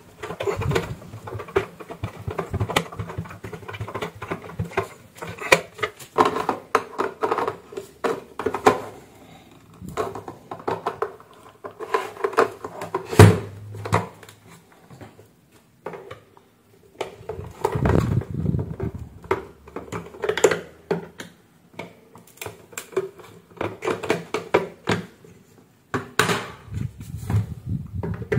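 Plastic blender base housing being handled and screwed back together: a steady stream of clicks, rattles and plastic scrapes, with a sharper knock about halfway through.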